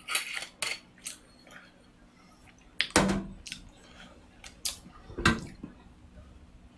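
Glass soju bottle and shot glass clinking and knocking on a round metal tray table. A few light clicks come in the first second, then a heavier knock about three seconds in rings briefly. A few more knocks follow, one near the end also ringing.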